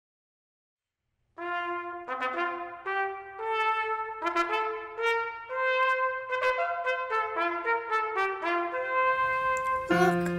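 Solo trumpet playing a slow melody of separate notes, beginning about a second and a half in. Just before the end, other music with a lower accompaniment comes in.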